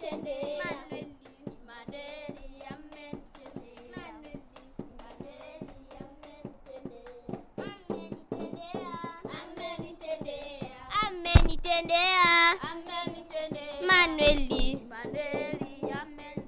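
A group of children singing together with hand clapping, the singing growing louder about two-thirds of the way in.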